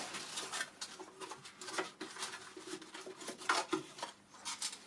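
Scattered light clicks, taps and rustles of small objects being handled, over a faint steady hum.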